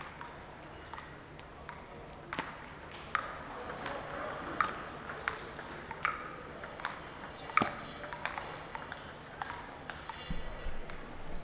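Table tennis rally: the plastic ball clicks sharply off the paddles and bounces on the table, about one click every three-quarters of a second, from about two seconds in until the rally ends near ten seconds. A few fainter, scattered clicks come before the rally.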